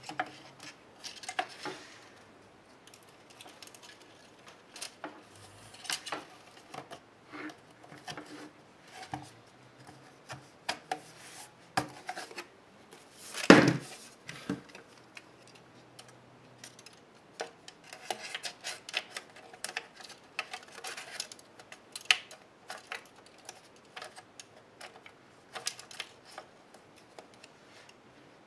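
Handling of a laptop's palm-rest case: scattered small clicks, taps and rubbing of plastic and metal parts, with one louder knock and scrape about halfway through as the case is flipped over onto the work mat.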